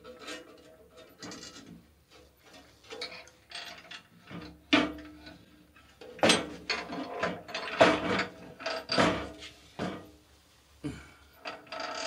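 Steel band saw table being set in place: a string of irregular metal clunks and scrapes, the hits leaving a short metallic ring.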